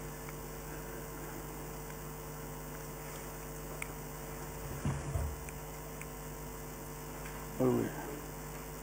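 Steady electrical mains hum, with a short low sound about five seconds in and a brief murmur near the end.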